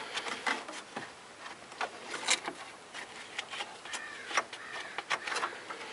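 Scattered light clicks, taps and scrapes of hand work on the plastic electric cooling-fan shroud and its wiring clip at the radiator.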